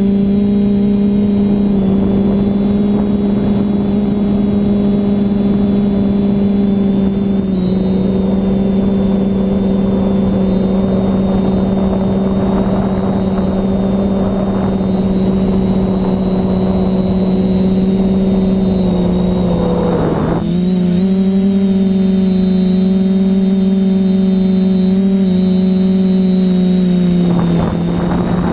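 Quadcopter's electric motors and propellers humming steadily, heard from on board, with a high electronic whine over the hum. The pitch dips briefly and recovers about twenty seconds in, and drops a little near the end as the throttle changes.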